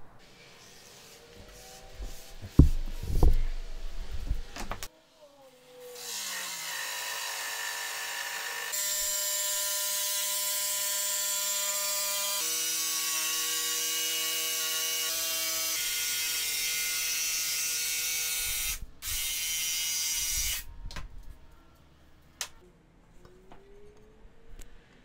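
A couple of loud knocks of the plywood being handled, then a jigsaw runs steadily for about fifteen seconds, cutting the plywood workbench top to size, with a brief break near the end before it stops.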